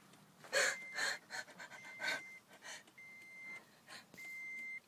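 A car's warning chime beeping steadily, about once every 1.2 seconds, each beep about half a second long. Loud panting breaths come over it, strongest about half a second to a second in.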